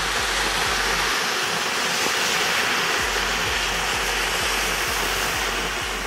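A cluster of torbellino fireworks burning together, spraying sparks with a steady, loud hissing rush.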